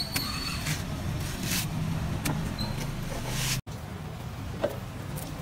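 Young coconut husk being torn apart by hand: a few short fibrous tearing sounds over a steady low hum of street traffic. The sound drops out for an instant a little past halfway.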